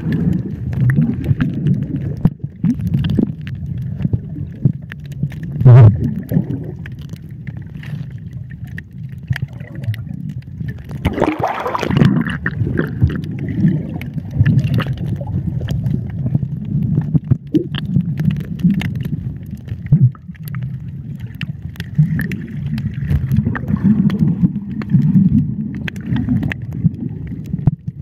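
Muffled underwater sound from a camera held under the sea: water rumbling and gurgling around it, with scattered clicks. There is a louder surge about six seconds in and another about twelve seconds in.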